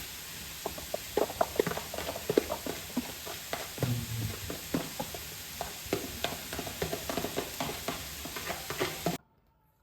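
Food being stirred in a pan: a utensil knocks and scrapes irregularly against the pan over a steady sizzling hiss, stopping abruptly near the end.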